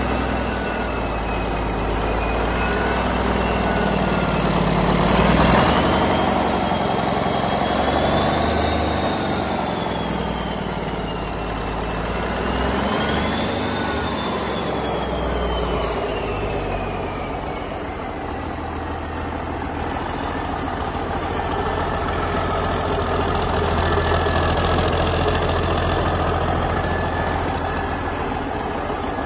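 1982 Cummins NTC855 turbocharged inline-six diesel engine running on a test stand. Its speed swells and falls back several times as the throttle is worked by hand, with a high whine that climbs and dips along with it.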